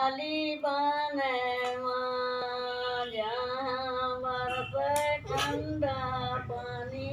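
An elderly woman singing a song in a high voice, holding long notes that slide between pitches, with short breaks between phrases.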